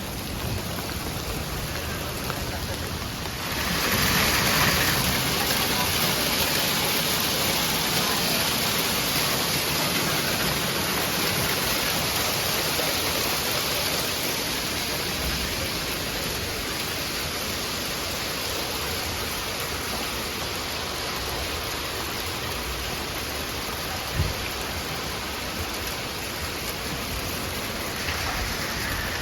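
Heavy rain pouring down steadily, growing louder about four seconds in and easing slightly later, with one short sharp tap near the end.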